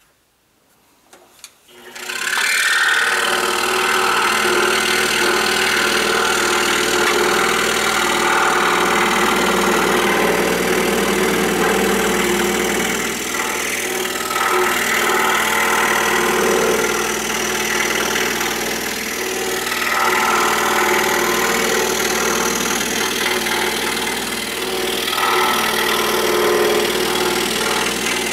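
Excalibur scroll saw starting up about two seconds in, then running steadily as its blade cuts along a ring line in a wooden basket blank.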